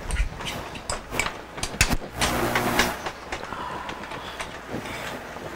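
Metal utensil scraping and clicking against a pan as browning turkey sausage and onions are stirred and broken up, with a short louder rasp about two seconds in.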